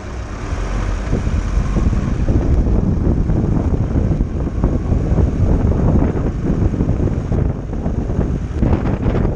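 Wind buffeting the microphone in an uneven low rumble, over the road and engine noise of a Volkswagen T6 camper van driving along.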